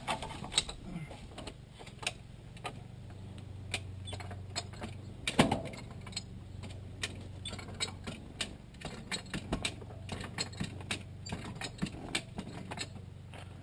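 Farm jack being worked against a tractor tire's bead, its ratchet clicking in an uneven run of sharp clicks, with one louder clack about five seconds in, over a steady low hum.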